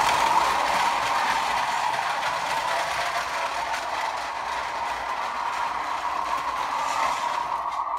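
Small electric drive motor and gearbox of a 1/16-scale RC model tractor whining steadily, with a light plastic rattle, as it tows a trailer across a concrete floor. The sound eases off in the middle as the tractor drives away and grows louder again near the end as it comes back.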